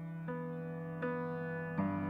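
Background music: slow keyboard notes, each held and ringing on, with a new note or chord entering about every three-quarters of a second.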